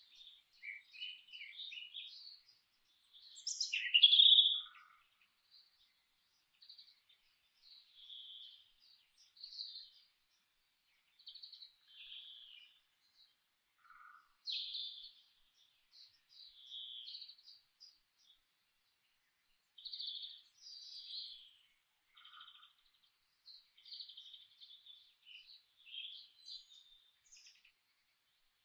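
Birds chirping and singing in short, scattered phrases with gaps between them, one louder call about four seconds in.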